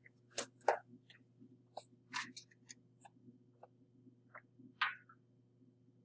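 Scattered light clicks and knocks of someone moving about and handling a lab ramp setup, the loudest a little under a second in, over a steady low room hum.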